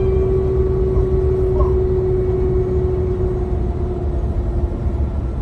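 Vehicle running: a steady low rumble with a droning hum that sinks slightly in pitch.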